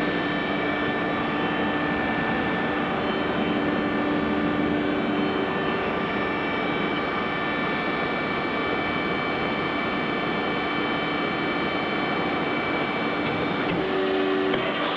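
Steady machine hum with several held tones from a running high-frequency welding machine, with a brief shift in the tone near the end.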